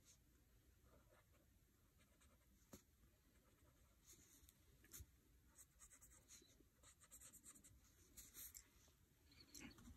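Faint scratching of a pencil drawing on lined notebook paper, in short strokes that come more often from about four seconds in.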